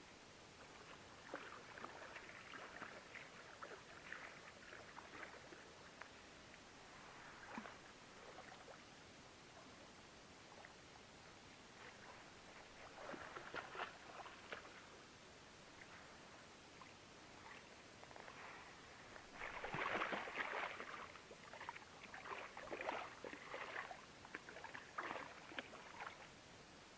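Water splashing and sloshing in irregular bouts as a hooked wels catfish thrashes at the surface close by, loudest about twenty seconds in.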